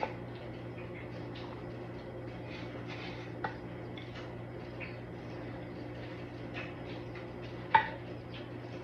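Wooden spoon scraping and scooping in a glass baking dish as a portion of casserole is served onto a ceramic plate, with a few light clinks of dishware, the sharpest near the end. A steady low hum runs underneath.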